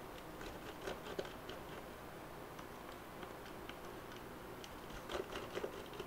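Small screwdriver working the screws of a stacked acrylic macropad case: faint, scattered light ticks and clicks of metal on screw and plastic, with a few louder clicks about a second in and again near the end.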